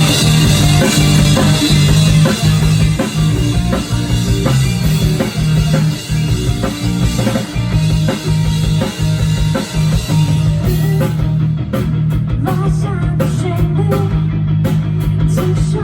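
Rock band playing live, with drum kit and guitar. About eleven seconds in, the bright high cymbal wash stops and the drums go on as separate sharp hits.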